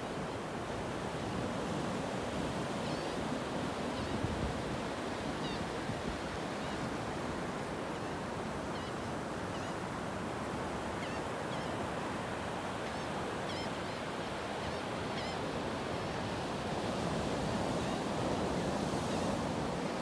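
Ocean surf washing steadily onto a beach, swelling a little louder near the end. Birds give short, high chirps scattered through the middle of it.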